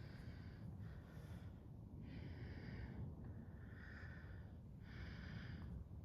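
A person breathing faintly and evenly, a soft in-and-out breath about every second, over a low steady room hum.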